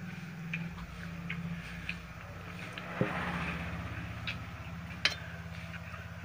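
Eating by hand from steel plates: scattered light clicks and clinks of fingers and rings against steel plates and bowls, with chewing, over a steady low hum. The sharpest click comes about five seconds in, another about three seconds in.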